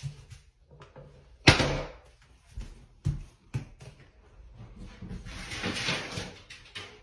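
A sharp knock about one and a half seconds in and a few softer thumps, then a rustling hiss that swells and fades near the end.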